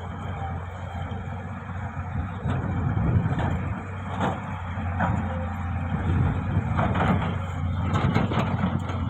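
Engine of a heavy earthmoving machine running steadily, with a series of short metallic clanks and knocks over it.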